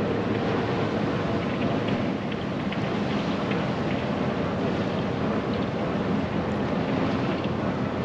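Steady wind noise on the microphone over the low, steady drone of a bulk carrier's engine as the ship moves along the canal.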